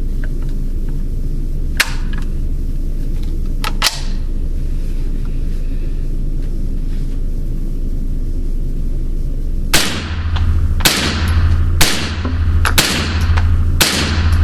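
Ruger 10/22 .22 LR rifle firing five unsuppressed shots of Aguila 40-grain subsonic ammunition, about one a second, each echoing in an indoor range. Two sharp clicks or knocks come earlier, about two and four seconds in, over a steady low hum.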